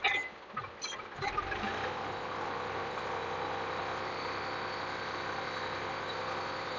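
Tractor diesel engine running steadily as it pulls a two-disc plough, starting in after a few short clicks in the first second.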